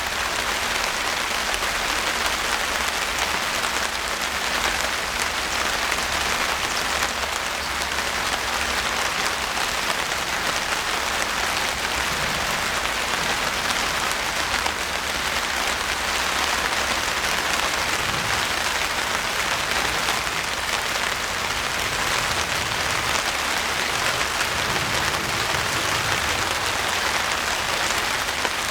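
Steady rain falling, with dense drops striking surfaces in a continuous even hiss.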